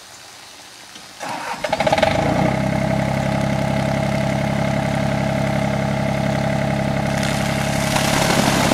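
Compact tractor's engine starting about a second in and then running steadily. Near the end, water begins pouring from the tipped loader bucket.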